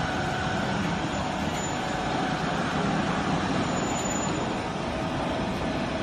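Hydraulic power unit of a compact vertical marine baler running steadily through a pressing cycle, as the ram presses down before returning up on its own.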